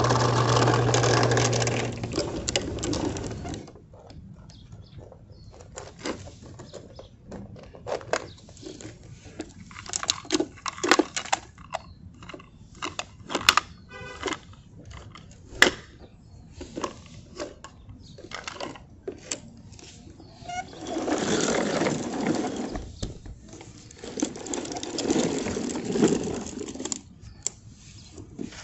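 Plastic toy garbage trucks being worked by hand: a run of sharp clicks and clattering knocks, with a steady hum at the start and two short rushing bursts near the end.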